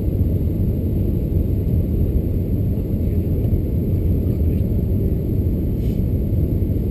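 Cabin noise of an Airbus A380-861 climbing after takeoff: a steady low rumble from its four Engine Alliance GP7200 engines and the airflow along the fuselage, heard from inside the cabin.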